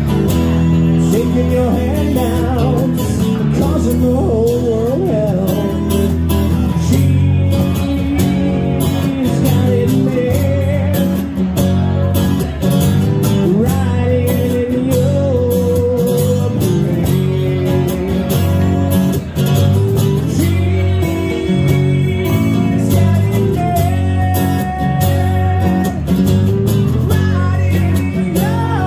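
A live acoustic band playing a song: a strummed acoustic guitar and an electric bass, with a man singing lead.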